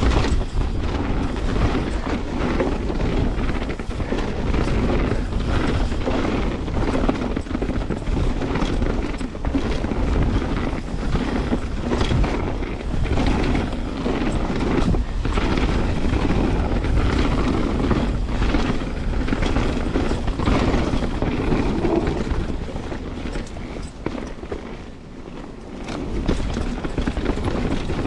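Canyon Spectral 29 mountain bike riding down a dirt trail: wind rushing over the microphone and tyres rolling, with frequent knocks and rattles from the bike over bumps. It quietens briefly near the end.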